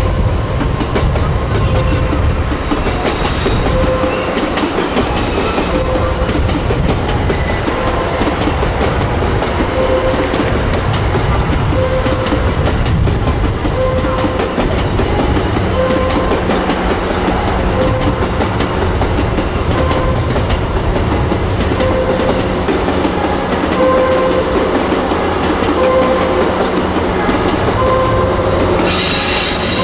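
HTM270 shunting locomotive slowly moving the EV-E301 ACCUM train along depot track: a steady low running noise, with short tones repeating every second or two. A high-pitched wheel squeal starts near the end.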